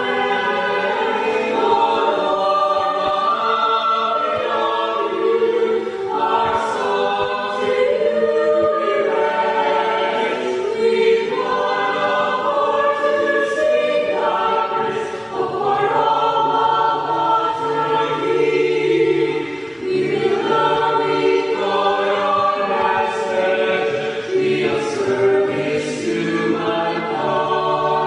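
Choir singing a slow song in several voice parts, holding long notes.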